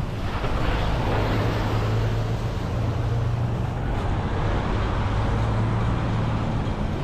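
City street traffic at a busy junction, with a bus engine running close by as a steady low hum under the noise of passing cars.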